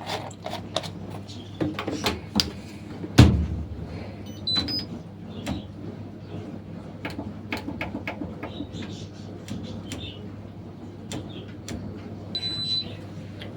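Washing machine being handled and set: scattered clicks and knocks of its detergent drawer and control panel, with a heavier thump about three seconds in. The control panel gives short electronic beeps about four and a half seconds in and a longer beep near the end as the hot-wash programme is set.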